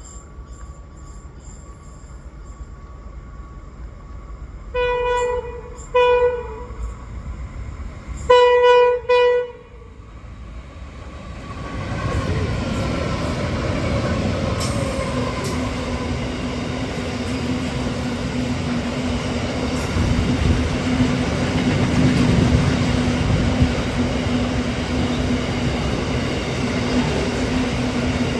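Diesel freight locomotives' horns sounding four short blasts in a row, the last two almost run together. From about eleven seconds in comes the loud, steady rumble of the locomotives and wagons passing at speed.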